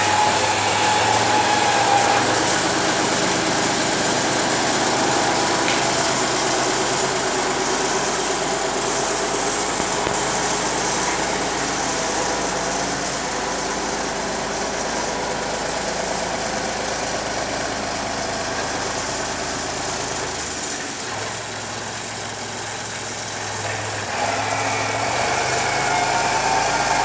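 Wheel loader's diesel engine running under load as it scoops and carries peat briquettes. The engine eases off for a few seconds about three quarters of the way through, then picks up again near the end.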